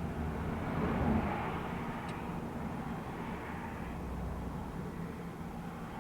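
Steady low rumble heard from inside a car, swelling briefly about a second in, with a faint small click about two seconds in.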